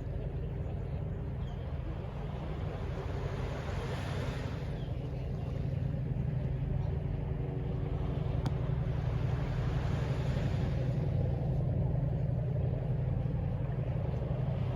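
Distant city traffic: a steady low rumble, with two swells of a vehicle passing, about four and ten seconds in.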